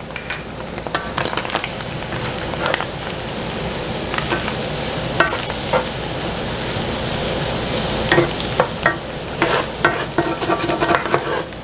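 Onions, mushrooms and garlic sizzling in butter and oil in a skillet after flour has been stirred in, with a utensil stirring and scraping the pan in short strokes that come more often in the second half.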